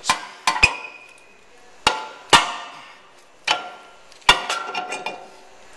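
New cross-drilled, slotted steel brake rotor knocking against the wheel hub and studs as it is slid on and turned to line up its screw holes: a series of sharp metallic clanks, several followed by a brief ring from the disc.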